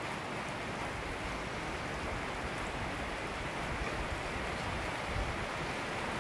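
Steady rain falling, heard as a continuous even hiss.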